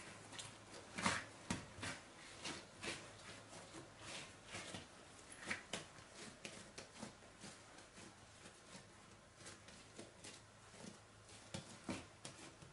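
Hands kneading and rounding a soft yeast dough on a silicone pastry mat: faint, irregular pats and soft knocks of the dough against the mat.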